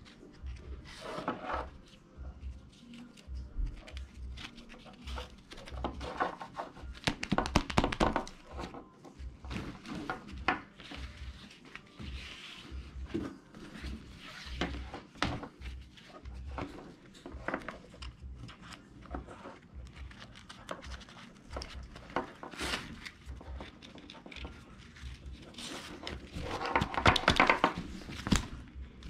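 Nylon webbing straps of a wall sling being threaded through buckles and pulled: irregular rustling and scraping of the strap with knocks of the buckles and hands against a wooden table. The loudest stretches of rustling come about seven seconds in and again near the end.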